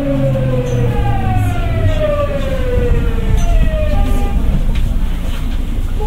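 Tokyu 9000 series' early Hitachi GTO-VVVF inverter whining in several tones that fall steadily in pitch as the train slows, over the rumble of wheels on rail. After about three seconds the falling tones fade into a few short steady tones.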